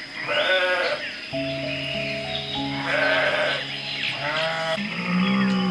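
Three short, wavering bleat-like animal calls over soft piano and guitar music.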